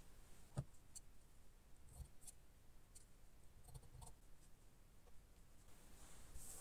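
Near silence with faint handling sounds: a soft knock about half a second in, then a few quiet scissor snips through fabric around four seconds in, and cloth rustling near the end.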